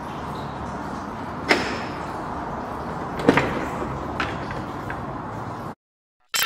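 Car door lock clunking and the door being opened: two sharp knocks about two seconds apart, then a few lighter clicks, over a steady hiss. The sound cuts out near the end.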